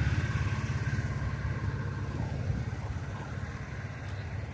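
A motor vehicle's engine running with a low, rapidly pulsing rumble that slowly fades away.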